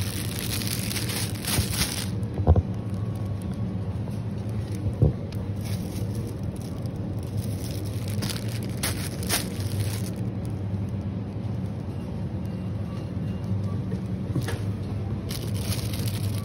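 Supermarket ambience: a steady low hum with a few short crinkly rustles and light clicks.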